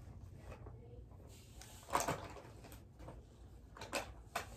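Light clicks and knocks of small objects being handled and searched through, over a low room hum. The clearest clicks come about two seconds in and twice near the end.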